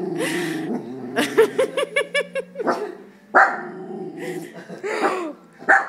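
Young West Highland white terrier alert-barking at a cat outside: a low growl at first, then a quick run of short, high barks at about five a second, then several single sharp barks.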